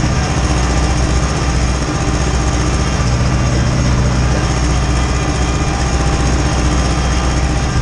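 Ursus tractor's diesel engine running steadily under load while pulling a seedbed cultivator, heard from inside the cab.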